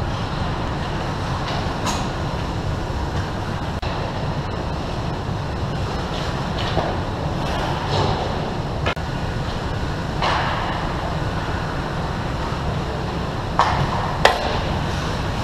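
Ice hockey play near the goal over a steady low rumble: skates scraping the ice and sticks and puck clattering now and then, with a hard skate stop about ten seconds in and two sharp knocks near the end.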